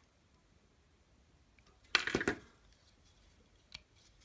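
Ganzo G7522 folding knife's blade flipped open on its ball-bearing pivot, locking with one sharp metallic snap about two seconds in, with a faint click near the end. The pivot screw has just been tightened to remove blade play, and the blade still runs freely.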